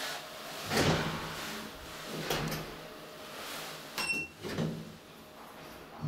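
Elevator door and handling noises: several short knocks and scrapes, the loudest about a second in, with a brief high tone about four seconds in.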